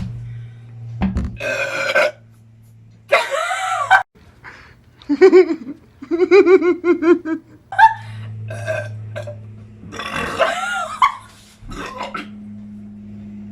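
A string of loud, drawn-out human burps, belching up gas from carbonated Sprite. One about six seconds in is long and rattling, and they sound like a zombie.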